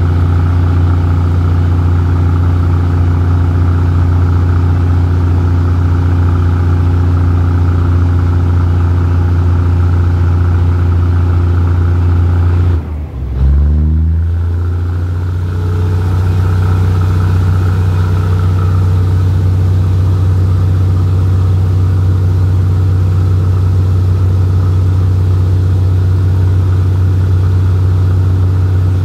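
Diesel engine of a locomotive-hauled train running with a loud, steady drone as the train pulls away from the station. About 13 seconds in the sound briefly drops and the engine note quickly rises before settling again.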